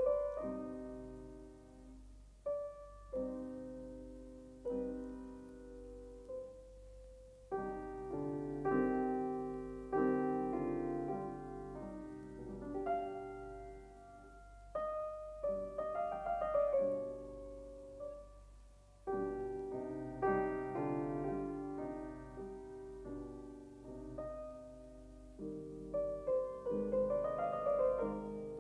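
Background music: a solo piano piece, sparse single notes at first, filling out into fuller chords from about seven seconds in.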